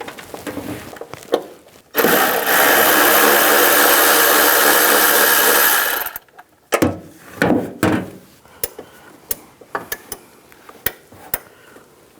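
A power tool spinning a 13 mm socket to loosen a door hinge bolt. It starts about two seconds in, runs steadily for about four seconds and stops, followed by light clicks and knocks of the socket and tools against the bolt and metal.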